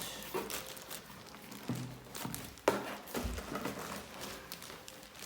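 Cardboard box and packing being handled as a boxed printer is worked out of it: rustling and scraping, with a sharp knock about two and a half seconds in and a low thud just after.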